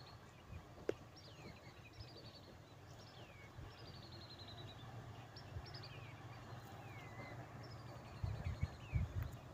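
Small birds calling over and over, each call a quick falling whistle or a short fast trill, about once a second, over a faint low rumble. A few low thumps near the end.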